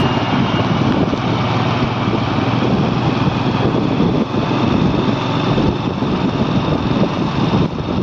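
Motorcycle engine running steadily while the bike rides along at speed, mixed with a steady rush of road and air noise.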